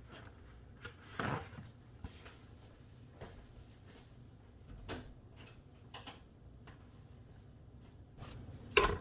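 Light knocks and taps of kitchen containers and utensils being handled, spaced a second or so apart, with a sharper, louder clunk near the end.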